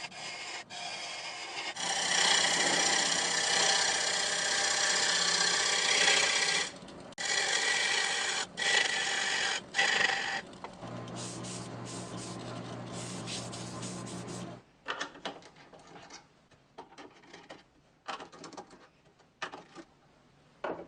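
A turning tool cutting into a spinning wooden bowl on a homemade lathe: a loud, rough scraping hiss, broken by short pauses as the tool lifts off. About eleven seconds in the cutting stops and only a steady low motor hum is left, which cuts off near fifteen seconds. A few light clicks and knocks follow.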